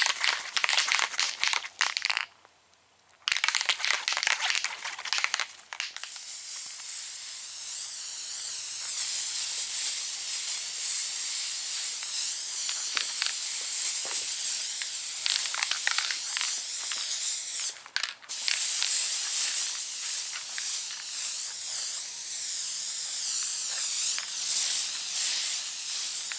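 Aerosol spray adhesive can hissing in long sprays, a short break about 18 seconds in, after a few short crackly bursts in the first five seconds.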